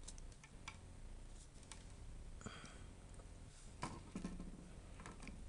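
Faint, scattered light clicks and soft rubbing: small handling noises while a laptop's CPU is being cleaned.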